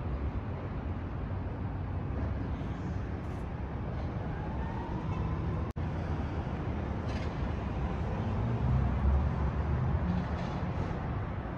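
Steady low rumbling background noise, broken by a split-second dropout about halfway through.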